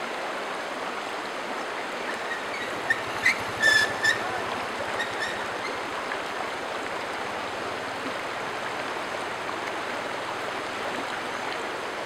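Shallow stream running over rocks, a steady rush of water. A few short, high chirps stand out about three to four seconds in.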